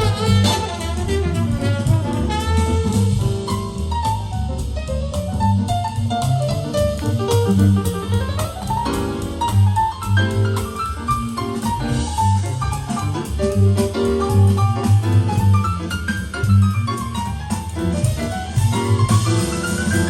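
Big band jazz, with saxophones and brass over piano, bass and drum kit, played back through Tannoy Platinum B6 bookshelf speakers. Quick runs of notes fall and then climb near the end.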